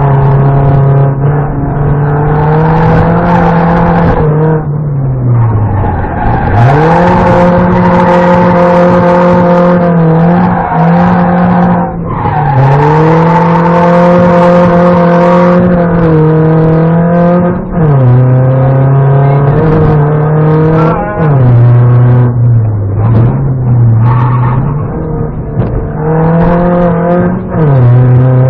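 BMW 318ti Compact rally car's four-cylinder engine, heard from inside the cabin, revving up and dropping back again and again through gear changes and braking, with bursts of rushing tyre and road noise.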